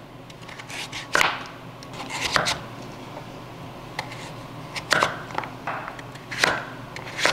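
Chef's knife slicing through raw butternut squash, each cut ending in a knock on a wooden cutting board: four clear strokes spaced one to two seconds apart, with a couple of lighter ones between.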